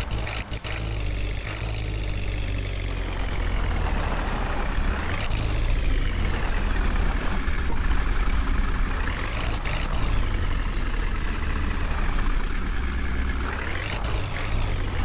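Heavy diesel engine running steadily under load, its pitch rising and falling several times as it is revved.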